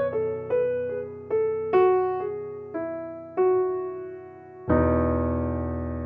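Background piano music: a slow melody of single struck notes stepping downward over a held low chord, then a fuller chord struck near the end that slowly fades.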